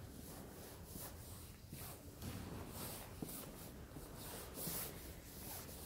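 Quiet room tone with faint shuffling and rustling, like footsteps and handling of a phone as it is carried, and one small click about three seconds in.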